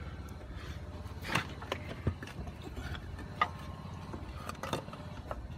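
Engine of a hydraulic pump running steadily with an even low pulse, driving the pier jacks that lift the settled fireplace. A few sharp clicks and knocks of metal sound over it.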